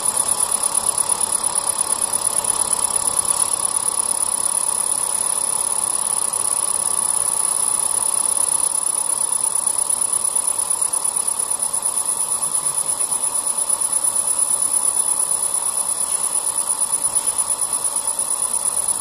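CO2 laser marking machine raster-engraving leather: a steady high-pitched whine from the galvo scanning head, pulsing rapidly and evenly as it sweeps line by line, over a steady lower hum.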